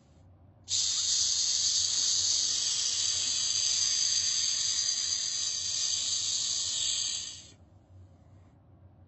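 A child's long hiss imitating a snake, played back at half speed. It starts abruptly just under a second in and fades out about seven and a half seconds in.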